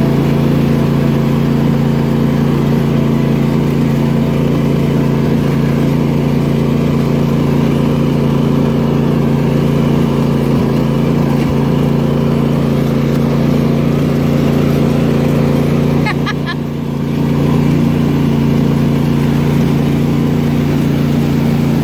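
Tractor engine running steadily at an even speed, with a brief dip in level about two-thirds of the way through.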